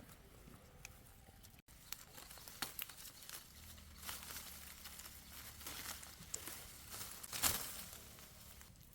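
Light rustling and crinkling of things being handled, with scattered soft clicks and a louder rustle about seven and a half seconds in.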